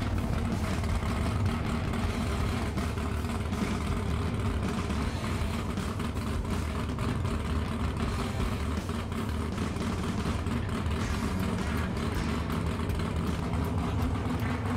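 Whipple-supercharged small-block engine of a Dodge Challenger drag car running steadily during its warm-up, with no revving.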